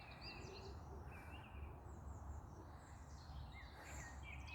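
Songbirds singing faintly, short chirping phrases repeated several times, over a low steady rumble.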